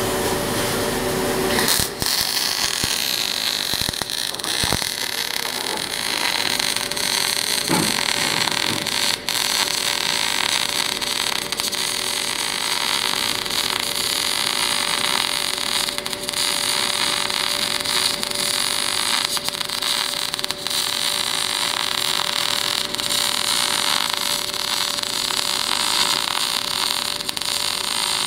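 MAG welding arc on a steel pipe: a steady crackling hiss that starts about two seconds in and runs on without a break, with a faint steady tone beneath it.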